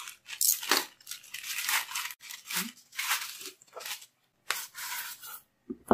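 A plastic poly mailer bag being opened and its foam-wrapped box pulled out: irregular crinkling and rustling of plastic, with a sharp tap near the end.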